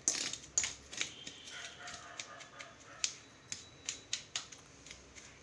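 Steel spoon clinking and scraping against a stainless steel bowl while stirring dry ground spice powder: a string of irregular light clicks.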